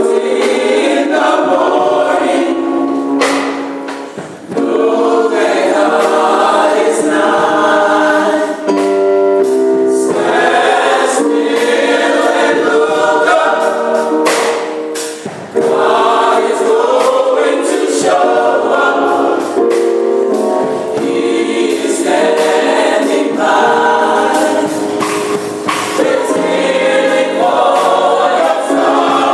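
A choir singing a gospel song, with short breaks between phrases about four and fifteen seconds in.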